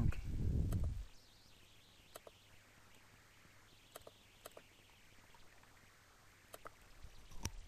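Computer mouse clicking: about seven single clicks at uneven intervals over faint background hiss, with a brief low rumble in the first second.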